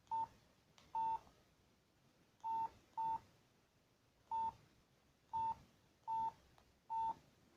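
Samsung SGH-P510 mobile phone's keypad beeping as its buttons are pressed: eight short single-pitched beeps at irregular intervals, each with a faint key click.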